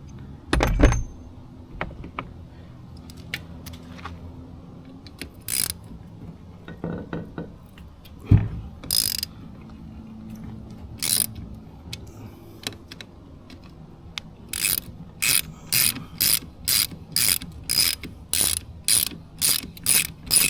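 Socket ratchet wrench backing out the 12 mm bolts that hold an outboard's lower unit. Scattered clicks and knocks at first, then from about two-thirds of the way in a steady run of ratchet strokes, about two a second.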